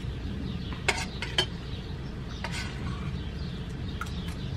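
Metal spoon and fork clinking and scraping against an enamel plate of fish and rice a few times, the clearest clinks about a second in and again about two and a half seconds in, over a steady low background rumble.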